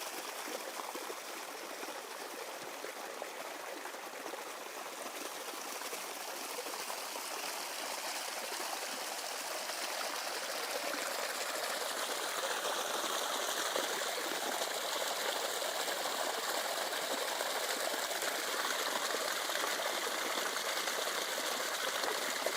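Water flowing in a stream, a steady rushing trickle that grows a little louder about halfway through.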